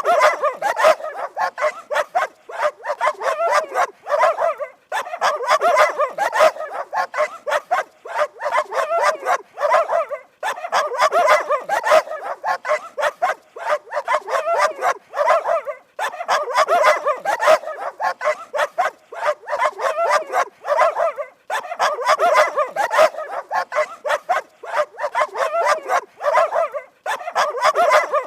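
Dog barking: fast runs of quick, sharp barks, broken by short pauses every five seconds or so.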